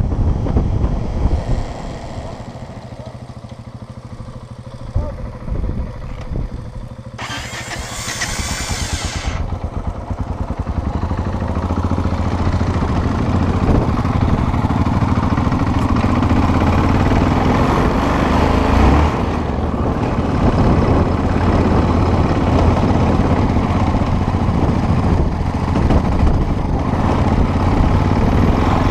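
Off-road motorcycle engine running, quieter for the first several seconds, then louder and steady from about twelve seconds in. A brief hiss about seven seconds in.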